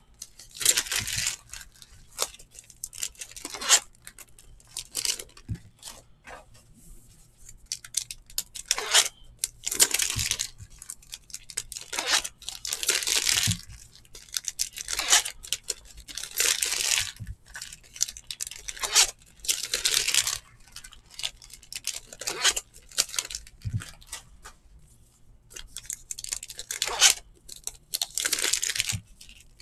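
Baseball card pack wrappers being torn open and crinkled, in irregular bursts of rustling, alternating with the cards being flipped and slid against one another.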